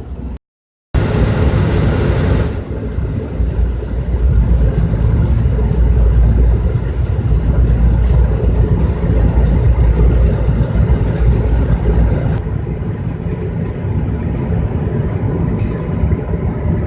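Carrier gas furnace running with a steady low rumble from its burners and blower. Its clogged secondary heat exchanger leaves the flame lazy and rolling outside the tubes. The sound cuts out for a moment just under a second in.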